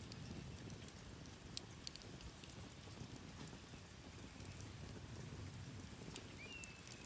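Campfire crackling: scattered sharp pops and snaps over a low, steady rumble. Near the end a bird calls once, a short rising note that turns into a held, slightly trilling whistle.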